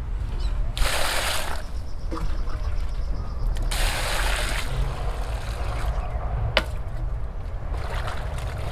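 Water poured from a plastic scoop onto leafy vegetables in a basin, splashing in two pours, about a second in and again about four seconds in, with a fainter pour near the end. A single sharp knock comes about six and a half seconds in.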